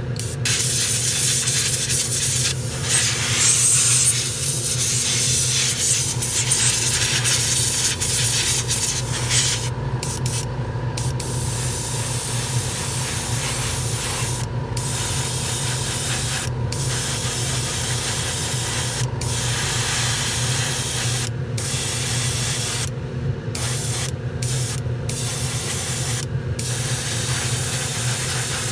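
Airbrush spraying surfacer in long hissing passes, broken by about ten brief pauses in the second half. A steady low hum runs beneath throughout.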